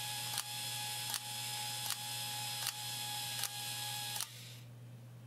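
The electric payout motor of a 1937 Mills Golf Ball vendor slot machine runs with a steady whir, driving its worm gear. About every three-quarters of a second the arm on the gear comes round and strikes the ratchet with a sharp click, about six times in all, advancing it one step each revolution. The motor cuts off a little over four seconds in.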